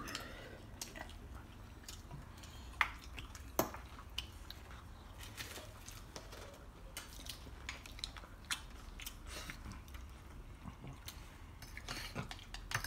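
Faint, scattered clinks of chopsticks and a fork against ceramic plates while people eat, with a couple of sharper clicks about three seconds in.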